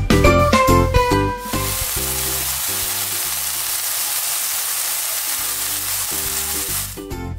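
A plant-based Omnipork patty sizzling as it fries in a pan, a steady hiss that starts about a second and a half in and stops shortly before the end.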